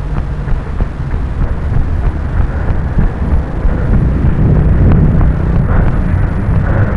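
Loud, steady low rumble of wind and handling noise on a small body-worn camera's microphone as the wearer walks, growing a little louder about four seconds in.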